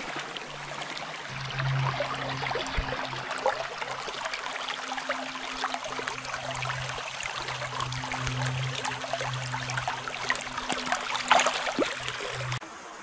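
Small creek water trickling and gurgling, with many small splashy clicks. A faint steady low hum underneath cuts off abruptly near the end.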